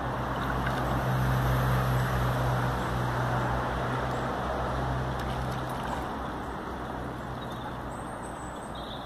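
Steady low engine hum with rumbling background noise, loudest in the first few seconds and slowly fading in the second half.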